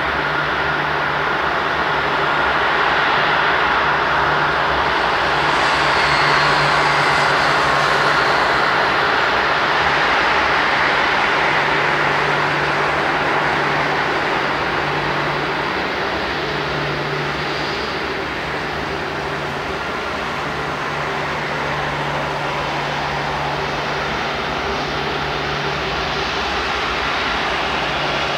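The four Rolls-Royce Trent 500 turbofan engines of an Airbus A340-600 running as the airliner taxies past, a steady jet whine and rush. It swells to its loudest about six to eight seconds in, then slowly eases.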